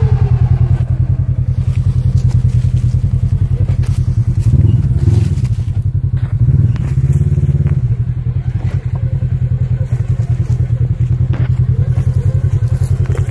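Polaris RZR XP1000's parallel-twin engine running near idle with a low, even pulsing beat as the UTV crawls over rock, with two short throttle blips about four and a half and seven seconds in. A few sharp knocks of the tyres and chassis on rock come through the engine note.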